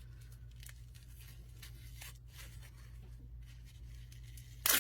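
Protective wrapping around a geode rustling and crinkling as it is handled and pulled open, with a short, louder tearing burst near the end, over a low steady hum.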